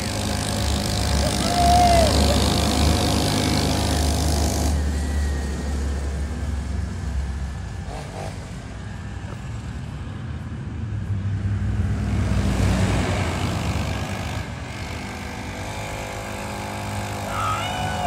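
Small engine of a rebuilt Mini40 mini dirt bike running on a test ride. Its note is loudest for the first few seconds, drops off in the middle, and swells again about twelve seconds in.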